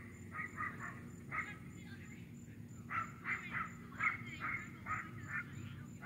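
Short animal calls in quick runs of several, with pauses between, the densest run about three seconds in. A faint high pulse repeats about three times a second behind them.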